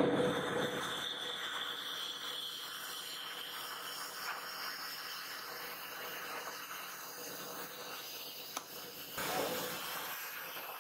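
Steady hissing noise, louder at the start and swelling again about nine seconds in, with one faint click shortly before the second swell.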